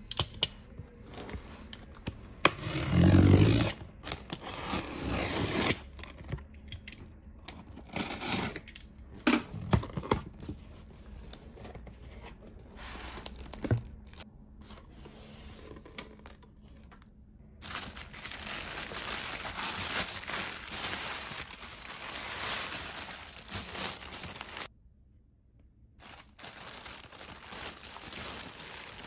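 A cardboard shipping box being opened by hand: packing tape cut and torn, cardboard flaps scraped open, and tissue paper and plastic wrapping rustling. A long, dense stretch of crinkling starts just past the middle, then stops suddenly for a moment before the rustling picks up again.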